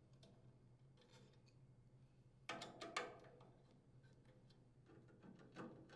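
Quiet metallic clicks and scrapes of a nut driver working the screws of a small engine's air filter base, with a louder cluster of clicks about halfway through and a few more near the end.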